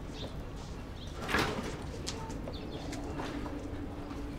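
Faint bird calls over a steady low hum, with a few light knocks and scrapes of materials being handled; the loudest knock comes about a second and a half in.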